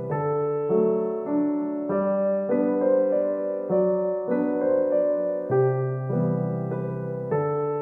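Background piano music: a slow melody of notes changing about every half second over held low bass notes.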